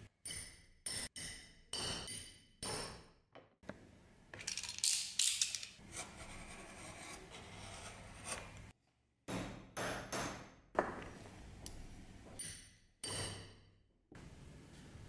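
Leatherwork at a workbench, heard as a run of short clips that start and stop abruptly: metal fittings clinking and scraping, and near the middle a longer scraping as a utility knife is drawn along a steel rule, cutting a strip of leather.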